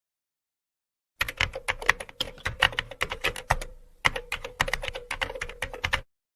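Computer keyboard typing: rapid, irregular key clicks that start about a second in and run for nearly five seconds, with a short pause midway. A faint steady hum lies underneath.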